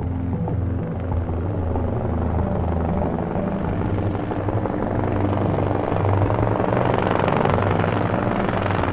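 Small helicopter's rotor and engine running as it flies close and passes overhead. The low hum holds steady while a rushing, hissing rotor noise swells over the second half.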